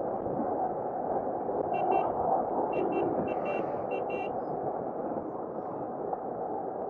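Wind and road noise on a moving bike rider's microphone, steady throughout. About two seconds in, four quick double beeps from some electronic beeper sound over it within about two and a half seconds.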